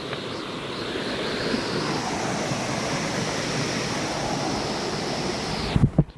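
Steady rush of flowing water over rock, growing louder over the first two seconds and then holding. A couple of low thumps come just before it cuts off abruptly near the end.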